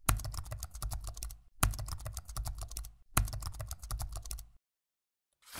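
Typing sound effect: three runs of rapid keystroke clicks, each about a second and a half long, as the lines of an on-screen notice are typed out. A burst of hiss starts just before the end.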